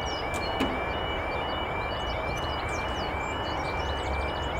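A British level crossing's warning alarm sounding while the barriers lower: a repeating two-tone yodel, about two cycles a second. Birds chirp above it, and there is a single sharp click about half a second in.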